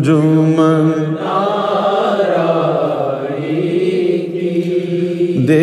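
A man singing an Urdu qasida, a Sufi devotional song. He draws out one long wordless melismatic phrase, with the pitch gliding up and down over held notes.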